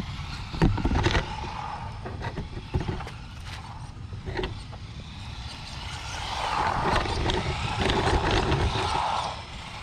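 Radio-controlled monster truck driving on an asphalt street: its motor and tyres whir, growing louder as it comes close from about six to nine seconds in. A few loud knocks come about a second in.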